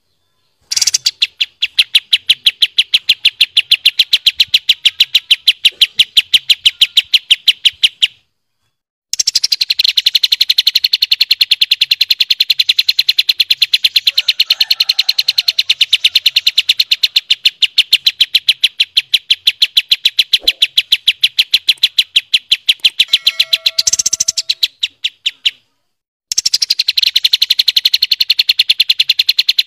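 Kapas tembak singing its long rapid-fire trill, a fast even run of sharp high notes repeated for many seconds at a time. It breaks off twice for about a second and starts again. A few lower notes from another bird come in briefly partway through.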